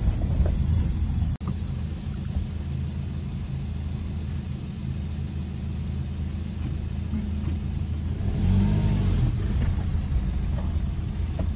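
Car engine running at low speed, heard from inside the cabin while driving on a rough dirt track, with a brief dropout about a second and a half in. Its pitch swells up and back down once, about eight seconds in.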